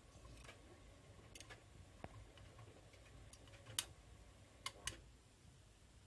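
AEG Lavamat front-loading washing machine turning its drum slowly with a wet load: a faint low rumble with scattered sharp clicks and taps as items in the tumbling load knock against the drum, three louder ones in the second half.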